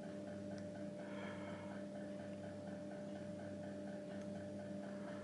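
Steady electrical hum, with a faint regular pulsing about four times a second.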